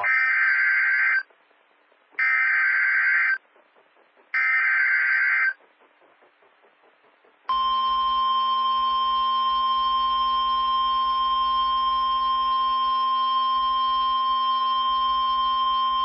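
NOAA Weather Radio SAME alert header: three short blasts of warbling data tones, each a little over a second long and about two seconds apart. About seven and a half seconds in, the steady 1050 Hz warning alarm tone begins. It marks the start of a new severe thunderstorm warning broadcast.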